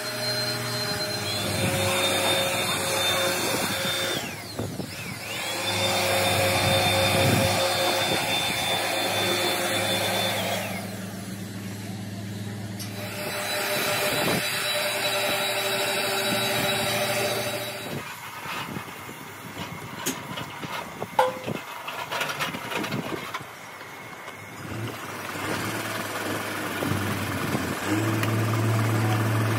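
Small corded electric handheld blower switched on three times for a few seconds each, winding up to a steady whine, blowing loose dust out of metal brake-drum moulds before casting. Lighter knocks and clatter follow in the last third.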